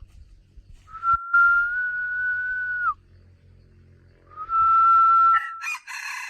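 Rooster crowing: two long, clear, whistle-like held notes of about two seconds each, each dropping in pitch at the end, followed by a short rattly flutter near the end.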